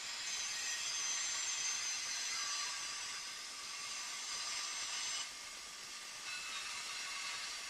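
Tesla 563A valve radio giving out static: a steady hiss with a few faint steady whistles in it. The hiss drops suddenly about five seconds in.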